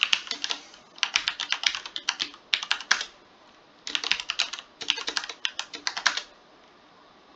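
Typing on a computer keyboard: quick runs of key clicks broken by short pauses, stopping about six seconds in.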